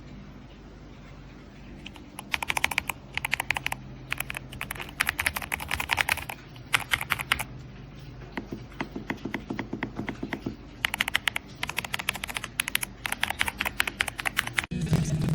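Fast typing on a YUNZII B75 PRO gasket-mounted mechanical keyboard: rapid key clicks in several bursts separated by short pauses, with a deeper-sounding run of keystrokes in the middle, over a steady low hum.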